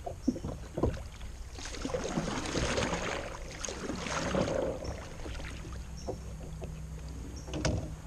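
Kayak paddle strokes: the blade swishing and splashing through the water for a few seconds, with a few sharp knocks of the paddle against the kayak near the start and again near the end.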